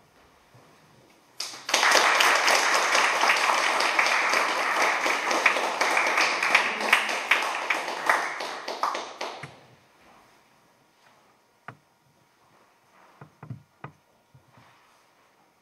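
Audience applauding, starting about a second and a half in and dying away after some eight seconds. A few faint taps and knocks follow in the quiet.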